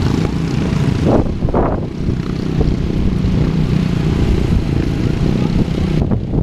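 Racing lawn mower engines running steadily out of sight, with two brief louder bursts about a second in.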